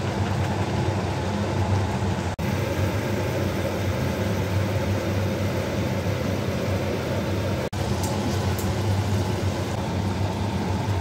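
Steady low mechanical hum over a constant rushing noise, cut off for an instant twice.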